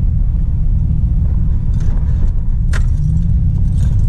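Steady low rumble of a 1999 Dodge truck being driven, heard inside the cab as engine and road noise. A few short light clicks or jingles sound over it, the sharpest about two-thirds of the way through.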